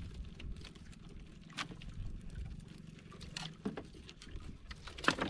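Small fishing boat rocking on a choppy sea: a steady low rumble with a few sharp knocks and clicks from the hull and gear, the loudest a quick double knock near the end.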